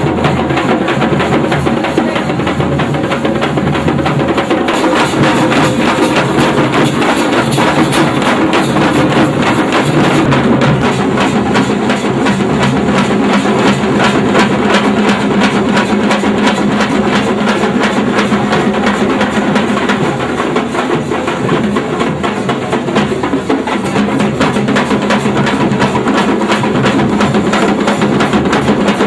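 Loud music driven by fast, continuous drumming with a steady beat.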